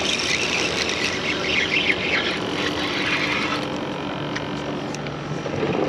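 Steady noise of a motor vehicle running, with a low steady hum joining in the second half.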